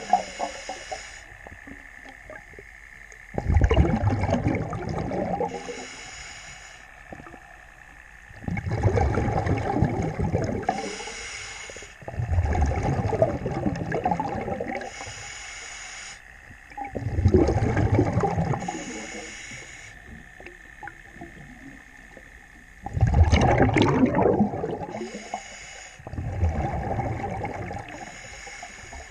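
A diver breathing underwater through a regulator: short hissing inhalations alternate with longer, louder bubbling exhalations, six breaths a few seconds apart.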